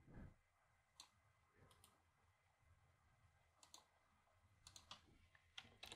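Near silence, with a few faint, scattered clicks of a computer mouse, more of them near the end.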